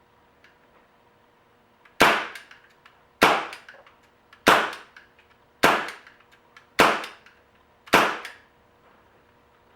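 A Crosman CO2 revolver-style air pistol fired six times in a steady series, about one shot every 1.2 seconds. Each shot is a sharp crack with a short ringing tail.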